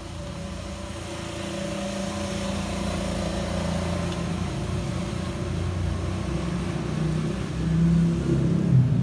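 Engine of a road vehicle running and growing gradually louder, with its pitch shifting near the end.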